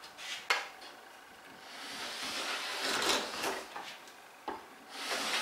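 Quangsheng No.62 low angle jack plane taking shavings from a wild-grained spruce board: a knock as the plane meets the wood, a long hissing cutting stroke, another knock about four and a half seconds in, then the start of a second stroke. The wild grain is tearing out under the blade.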